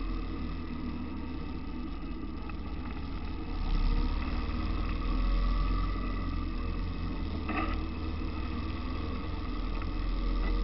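Car driving along a winding road: steady engine and road noise from inside the car, getting louder about three and a half seconds in.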